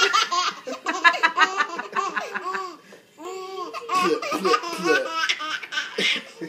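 A baby laughing hard in quick repeated bursts. The laughter breaks off for a moment about three seconds in, then starts up again.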